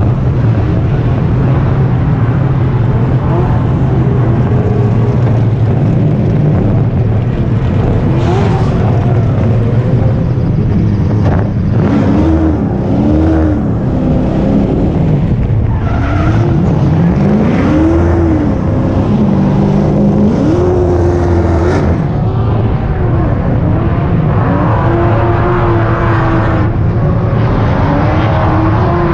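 The loud, steady rumble of a Formula Drift BMW E46 drift car's engine, heard from its hood while the car rolls slowly in the staging lane. From about twelve seconds in, engines rev up and down again and again, with drift cars on the track revving and skidding.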